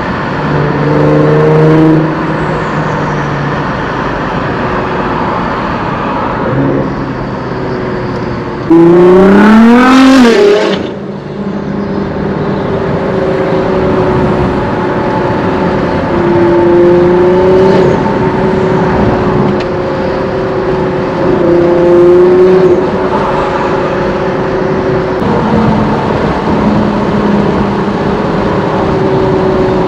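Nissan GT-R R35's twin-turbo V6 with aftermarket bolt-ons running under way with a steady drone. About nine seconds in it revs hard in a loud rising pull that cuts off sharply a second and a half later, then settles back to a steady note.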